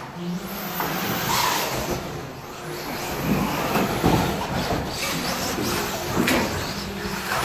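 1/10-scale radio-controlled cars racing on a carpet track: a steady mechanical noise of motors and tyres, with several sharp knocks from the cars bumping and landing.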